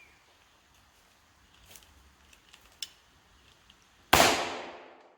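A single shot from an 1851 Colt Navy black-powder percussion revolver about four seconds in, sharp and loud, ringing away over about a second. A few faint clicks come before it.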